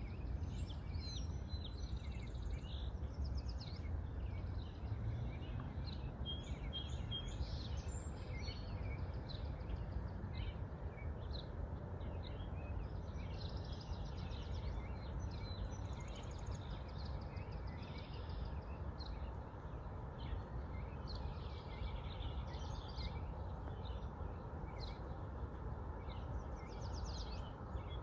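Small birds chirping and trilling throughout, over a steady low background noise.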